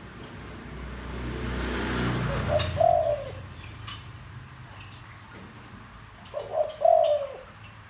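Spotted dove cooing: two deep coo phrases, one about three seconds in and the other near the end, each a short run of low hooting notes. Before the first coo, a brief swell of rushing noise rises and fades.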